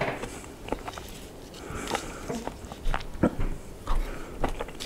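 A person eating a bite of s'mores ice cream pie: chewing and mouth sounds with scattered small clicks and knocks, the loudest a little past the halfway point.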